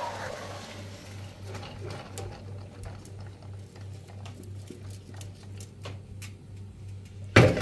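Red kidney beans and their water poured from a cooking pot into a metal colander in a sink: a brief rush of pouring at the start, then scattered clicks of beans against the metal. A steady pulsing low hum runs underneath, and there is a loud knock near the end.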